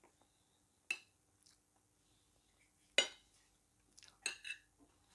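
Metal spoon clinking against a plate while scooping macaroni: a light click about a second in, a louder clink about three seconds in, and a quick run of clinks near the end.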